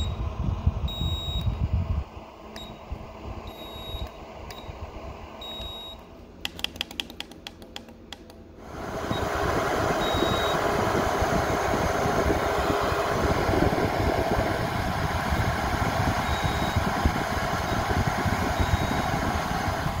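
Handheld infrared thermometer beeping repeatedly as it takes readings at a heating register. About eight and a half seconds in, a loud, steady rush of fan-forced warm air from the register takes over, with a few more beeps over it. The first two seconds hold a low rumble.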